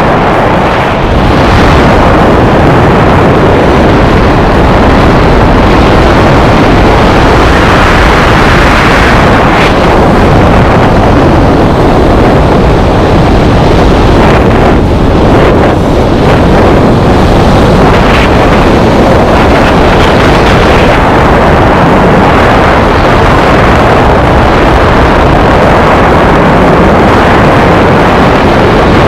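Loud, steady rush of air buffeting the camera microphone during a skydive: the wind of a tandem freefall.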